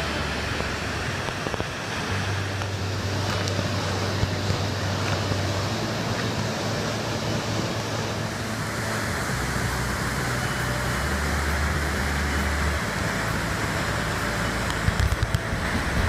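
Waterfall pouring into its plunge pool: a steady, dense rush of falling and splashing water.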